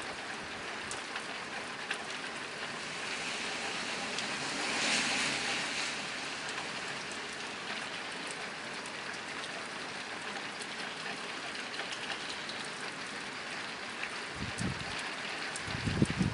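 Steady rain falling on a nearby tin roof: an even hiss scattered with the ticks of single drops. The hiss swells briefly about five seconds in, and there are a few low rumbles near the end.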